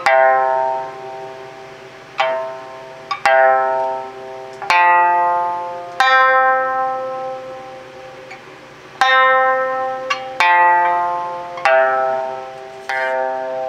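Okinawan sanshin with a python-skin head tensioned high (12-bu tension, the 850 Hz high-range tone), tuned C–F–C. Single notes are plucked one at a time with a horn pick, about ten in all, each left to ring and fade.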